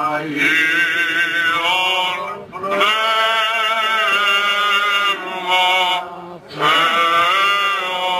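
Byzantine liturgical chant sung by a male cantor: long, ornamented melodic phrases, three of them with short breaks between, over a low steady drone.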